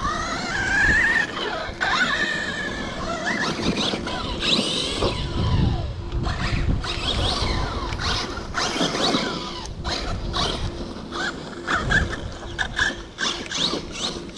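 Kraton 6S brushless RC car's motor whining, rising and falling in pitch as it speeds up and slows down. Scattered knocks and clatter come with it, more of them in the second half.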